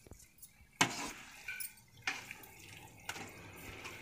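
Steel spatula scraping and knocking against a metal pan while a dry chicken fry is stirred, three strokes, the first about a second in and the loudest, over a low steady sizzle of frying.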